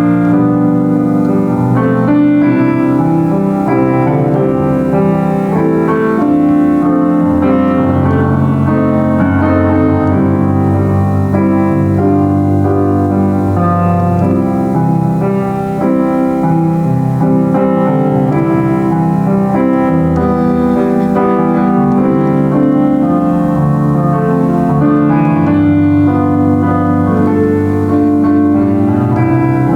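Solo piano playing a worship song in full, sustained chords, with a continuous melody over a moving bass.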